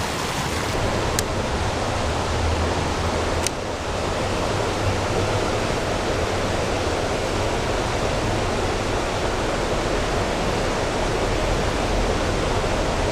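Steady rush of flowing creek water running high, with two brief sharp clicks about one and three and a half seconds in.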